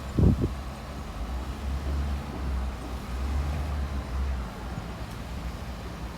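Bulldozer's diesel engine running, its low drone swelling and easing several times as it works, with one loud low thump just after the start.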